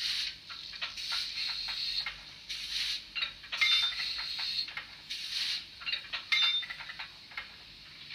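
Sound decoder in a Fleischmann N-gauge BR 044 steam locomotive model playing its uncoupling sound through the model's small speaker: a series of short metallic clinks and clanks of the couplings, with bursts of hiss.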